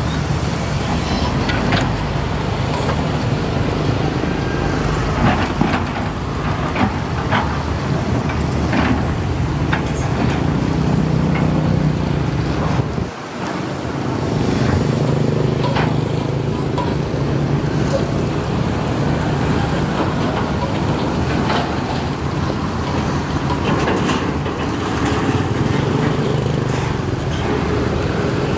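Hydraulic excavator (Matador ME210LC-1) working: its diesel engine running under load, the note swelling and easing off as it digs and swings, with scattered clanks and scrapes from the bucket and soil. The sound drops briefly about halfway through.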